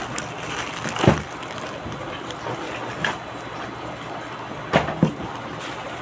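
Plastic toy packaging rustling and crinkling as it is handled, with a few sharp knocks, the loudest about a second in and two close together near the end.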